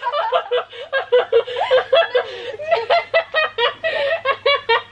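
A girl laughing in a rapid string of high-pitched bursts, about four a second.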